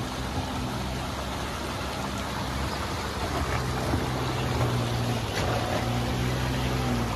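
Tata Tiago hatchback's engine pulling steadily as the car climbs a steep, rocky dirt track, a constant drone under a rough noise. The engine note grows a little stronger about halfway through.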